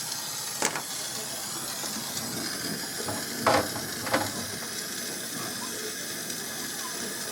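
Steady gas hiss of a brazing torch flame, with a few sharp metallic clicks or taps: one about half a second in, and a louder pair about three and a half and four seconds in.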